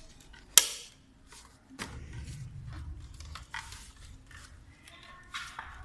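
Hard plastic clicks and knocks as a Dell monitor's stand and base plate are fitted together and the monitor is handled, with one sharp, loud click about half a second in and another a second later. Plastic wrap rustles in between.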